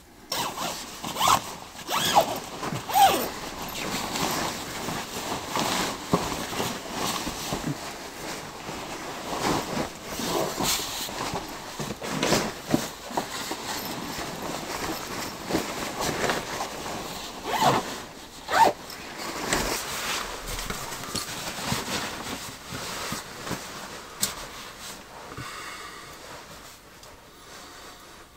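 Sleeping bag being handled and zipped: fabric rustling and a zipper pulled in a series of irregular scraping strokes, easing off near the end as the person lies still in it.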